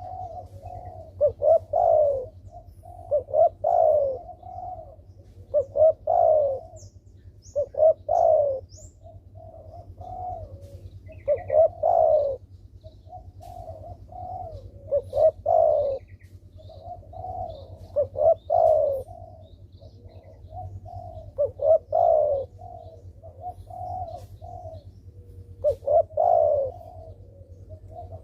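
Spotted dove (derkuku) cooing over and over, a phrase of a few low, rolling coos every two to four seconds, its gacor song used as a lure to set other doves calling.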